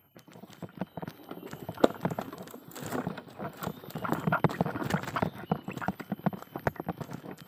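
Steel wheelbarrow loaded with lumps of coagulated rubber being pushed over uneven ground littered with dry leaves and twigs: a dense, irregular run of knocks and rattles, with one sharper knock about two seconds in.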